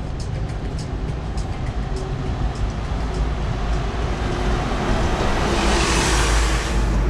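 Street traffic with a steady low rumble; a vehicle passes close, its tyre and engine noise swelling about four seconds in, peaking near six seconds and falling away at the end.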